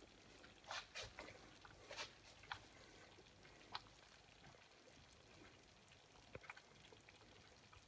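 Thick pea soup bubbling in a pot, its bubbles bursting with faint, irregular wet pops. A few louder pops come in the first four seconds and a quick cluster of them follows later.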